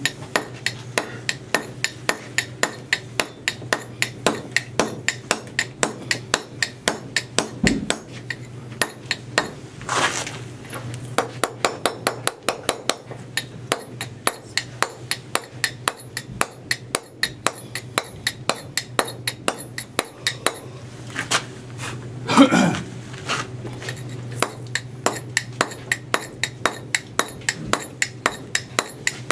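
Stonemason's boaster chisel driven into stone with quick, even blows, about three a second, chipping the face of a chamfer between its drafted edges.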